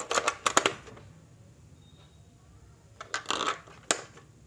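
AA batteries being pressed into the plastic battery compartment of a toy fishing pond, clicking and rattling against the spring contacts. There is a cluster of clicks in the first second, another about three seconds in, and a single sharp click just before four seconds.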